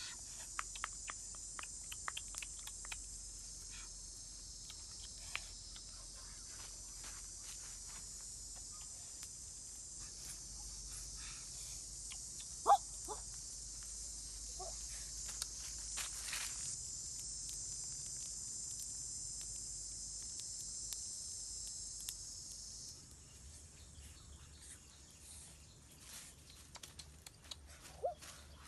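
A steady high-pitched insect drone, which cuts off suddenly about 23 seconds in, over scattered light clicks and leaf rustles, with one sharp snap a little before halfway.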